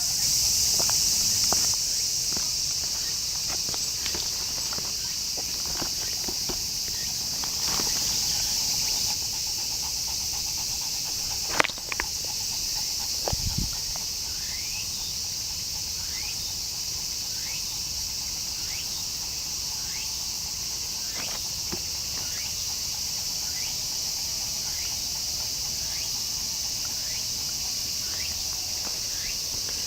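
Steady high-pitched chorus of insects, with scattered light clicks and one sharp click about 11 seconds in. In the second half, short rising chirps repeat about once a second.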